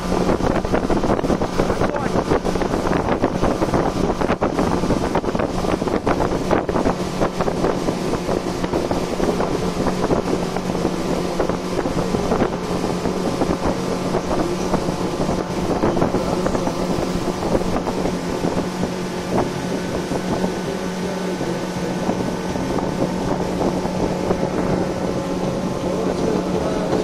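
A small boat's motor running at a steady speed under way, a constant hum over the rush of noise.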